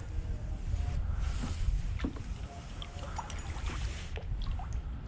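Steady low wind noise on the microphone of a kayak on the water, with scattered light clicks and knocks.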